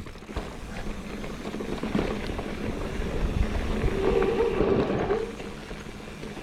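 Mountain bike rolling over a rough, rocky creek-side trail: tyre noise, rattling and knocks from the bike, with wind on the microphone. A brief whine sounds about four seconds in.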